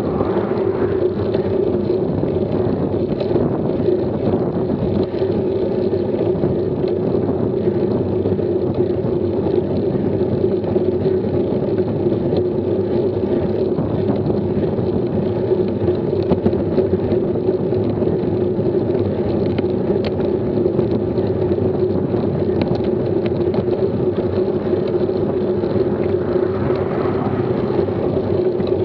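Steady wind and road noise on a bicycle-mounted camera riding uphill at about 13 mph, with a car passing near the end.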